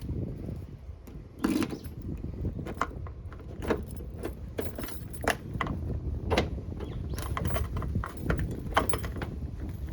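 Keys jingling and clicking irregularly at the stuck rear door lock of a Mitsubishi Pajero Mini, over a low steady rumble.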